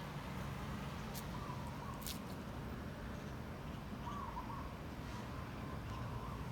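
Faint bird calls: a short warbling call about half a second in and again about four seconds in, over a steady low background rumble.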